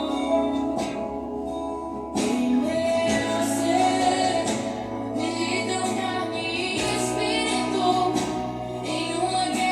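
A Christian worship song playing, a female voice singing over sustained chords and a steady bass line.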